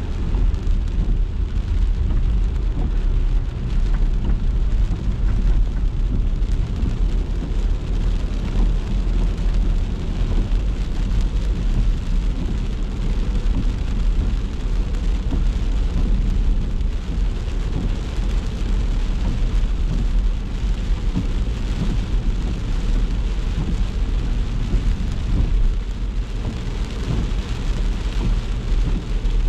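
A car driving in the rain: a steady low rumble of engine and road, with the hiss of rain and wet tyres over it.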